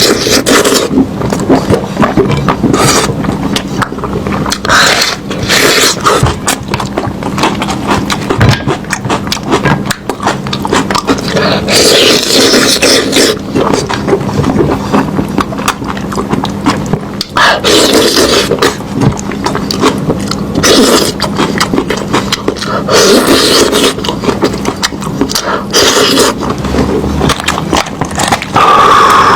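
Close-up eating sounds of lamb meat being chewed, with a dense, irregular run of wet smacking clicks throughout, over a steady low hum.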